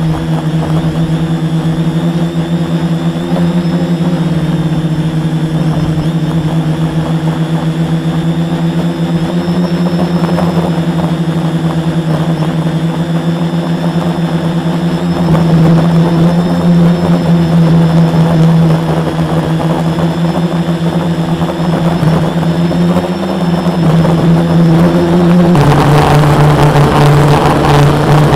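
Quadcopter's four Multistar 2212 brushless motors and 10-inch propellers droning steadily, heard from the camera mounted on the frame. The hum gets louder and shifts pitch about halfway through, and again near the end.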